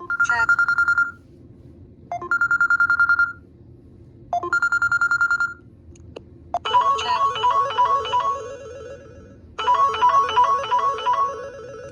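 Samsung Galaxy Core Prime phone speaker playing ringtones: first a trilling ring in three bursts about two seconds apart, then, about six and a half seconds in, a short electronic melody that plays twice.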